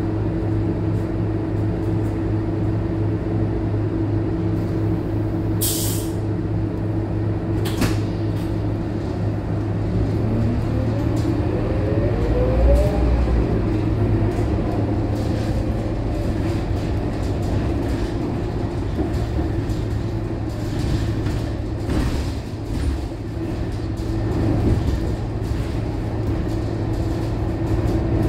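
Scania K230UB bus's diesel engine heard from inside the cabin near the front: a steady idle hum, with two short hisses about six and eight seconds in. About ten seconds in, the engine note climbs as the bus pulls away, and it then keeps running under way.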